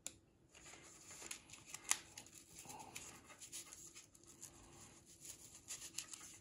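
Faint handling noise: soft rustling and a few small sharp clicks as a circuit-board LED strip is worked into a foam tube by hand, the clearest click about two seconds in.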